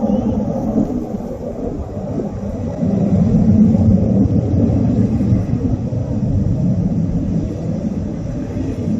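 Jet aircraft engines making a continuous low rumble that swells and eases.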